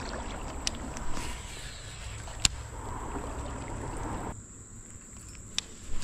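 Creek water sloshing and swirling around the legs of a person wading, with a few sharp clicks, the loudest about two and a half seconds in. The water sound drops away about four seconds in.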